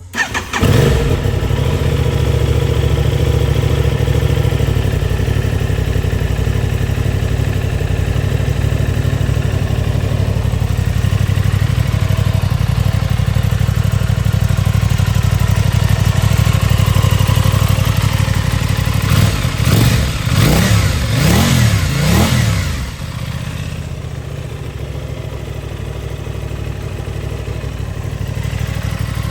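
Aprilia Tuono 660's parallel-twin engine starting about half a second in and running at a steady idle. About two-thirds of the way through, the throttle is blipped three times in quick succession. The engine then settles back to a quieter idle.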